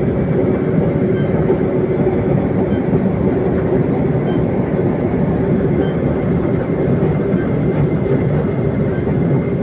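Steady engine drone and road noise inside the cab of a mobile crane travelling at highway speed, about 80 to 100 km/h, with a low hum held throughout.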